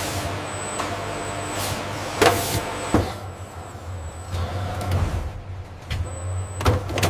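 Steady low mechanical hum with a thin high whine that comes and goes, broken by several sharp knocks and clanks.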